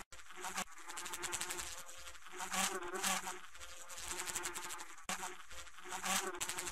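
A fly buzzing as it moves about a clear incandescent light bulb, the buzz swelling and fading with a rapid fine flutter, with a brief break right at the start.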